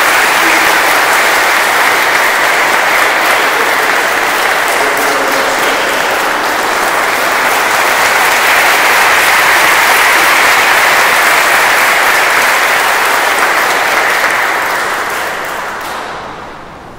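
A church full of guests applauding: a long, dense round of clapping that fades away over the last few seconds.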